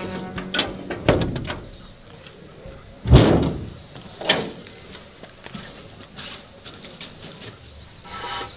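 Keys rattling and a door lock being worked by hand, a series of clicks and knocks with the loudest clack about three seconds in and a second one about a second later.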